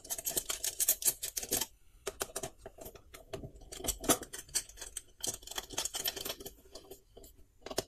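Screwdriver working the brass terminal screws of a plastic switch and socket board, clamping a wire into a terminal. It makes irregular small clicks and scrapes of the tip on screw and plastic, with a brief pause about two seconds in.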